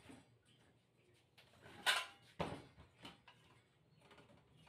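Knocks and clatter of a hand-held circular saw, motor off, being handled and moved along its wooden guide rails: a few separate knocks, the loudest about two seconds in with another just after.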